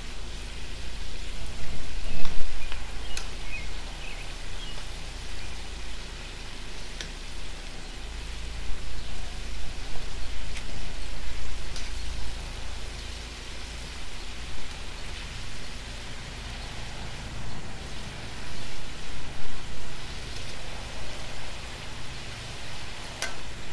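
Chicken frying in hot oil in a cast iron skillet: a steady, rain-like crackling sizzle. A few sharp clicks of metal utensils against the pan come as the pieces are turned.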